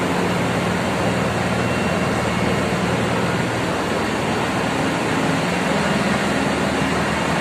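Steady din of a ship's engine room: running machinery giving a constant low hum under a broad rushing noise.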